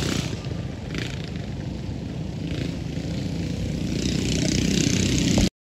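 Small mini bike engines running at the drag strip, growing louder over the last couple of seconds, then cut off abruptly near the end.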